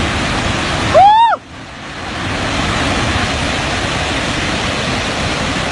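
Steady rushing roar of a muddy flood surge tearing through the valley. About a second in, a person gives one short, loud yell that rises and falls in pitch.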